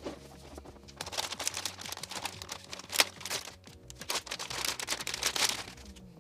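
Anti-static plastic bag crinkling and rustling as a graphics card is slid out of it. The rustling starts about a second in, with a sharp loud crackle near the middle, and dies away near the end, over soft background music.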